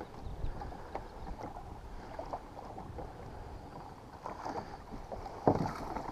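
Small waves lapping and slapping against the plastic hull of a Hobie Pro Angler kayak under way, in irregular little splashes, with one louder knock about five and a half seconds in.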